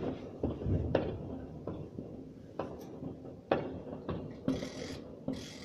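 New Year's Eve fireworks and firecrackers going off: a string of irregular sharp bangs, with short hissing, crackling bursts near the end.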